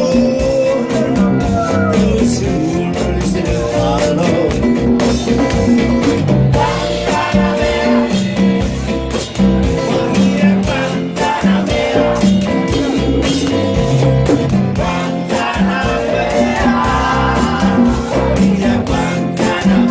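Live band playing a song: a woman singing over electric guitar, bass guitar and drums with a steady beat.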